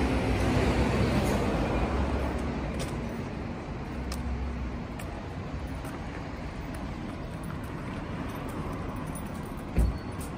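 Bakery kitchen machinery running with a steady whirring noise and low hum that eases off over the first few seconds. A few light clicks, then a single dull thump near the end.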